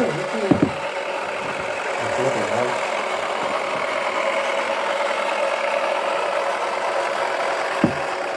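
Small electric motor of a toy washing machine running steadily, a hum with a held mid-pitched tone. Two sharp knocks come about half a second in and another near the end.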